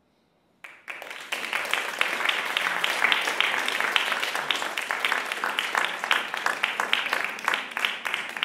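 Audience applauding: dense, steady hand-clapping that breaks out about half a second in after a brief silence.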